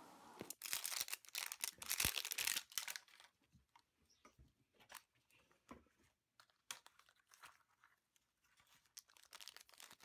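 Plastic wrapping on an LOL Surprise toy ball crinkling and tearing as it is peeled off for the first three seconds or so. Scattered faint clicks and taps of the plastic ball shell being handled and opened follow, and foil packets crinkle again near the end.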